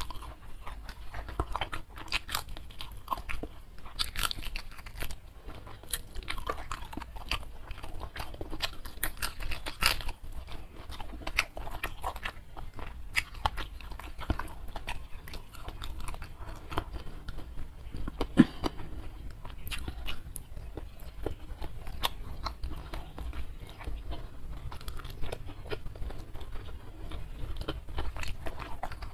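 A person chewing and crunching food with her mouth close to a lapel microphone, a steady run of irregular crisp clicks and crunches, with fingers picking through rice and sambal on the plate.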